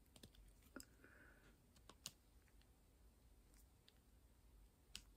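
Faint, sparse clicks and taps of a diamond-painting pen picking drills from a tray and pressing them onto the coaster's canvas, about half a dozen in all, the sharpest about two seconds in.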